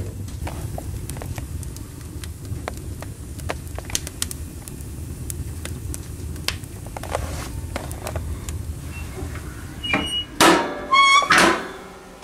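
Wood fire burning in a wood stove's firebox: a steady low rumble with scattered crackles and pops. Near the end, several loud metallic clanks with a ringing tone as the stove's metal door is shut and latched.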